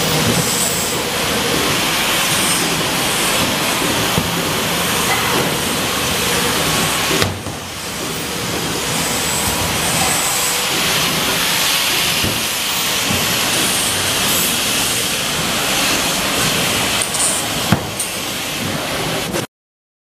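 Wire-rack factory floor noise: a steady hissing machinery din with occasional knocks of metal. It dips briefly about seven seconds in and cuts off suddenly near the end.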